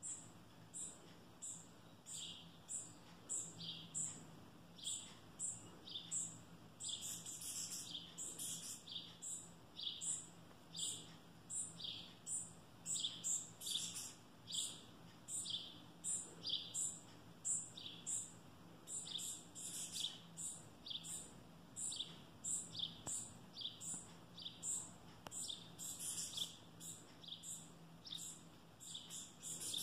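Sparrow fledgling giving repeated high begging chirps, about one to two a second without letup, as a parent feeds it.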